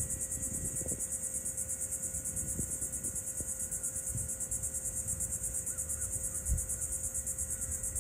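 A steady chorus of insects trilling, high-pitched and pulsing in a fast even rhythm, with a low rumble underneath.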